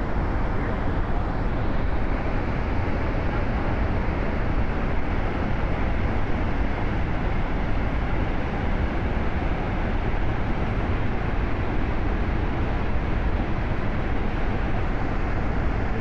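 Waterfall: a loud, steady rush of falling water, heaviest in the low end.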